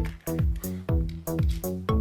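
Upbeat electronic background music with a quick, steady beat.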